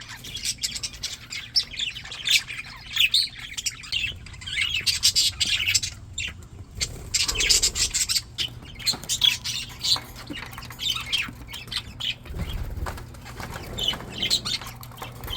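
A flock of English budgerigars chattering, a dense stream of overlapping warbles, chirps and squawks, with many short sharp clicks among them. A brief low rumble comes near the end.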